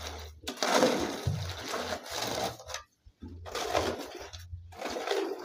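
Shovel scraping and crunching through a pile of cement, sand and gravel as concrete is mixed by hand, several strokes with short pauses between.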